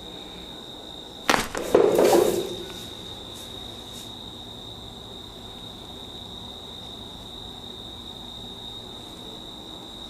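Hands working on a person's head and body in a massage: a little over a second in, a quick flurry of sharp cracks and slaps lasting about a second and a half, followed by a couple of faint ticks. A steady high-pitched whine sits underneath throughout.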